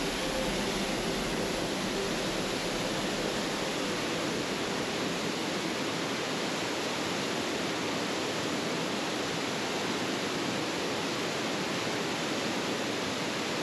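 Waterfall rushing steadily, with the water cascading over the boulders below it: a loud, even rush without a break.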